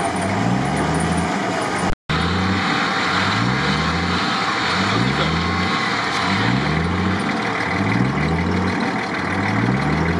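Off-road vehicle engine running under load while being recovered from swamp mud, with a low rising sound that repeats about once a second. The audio drops out briefly about two seconds in.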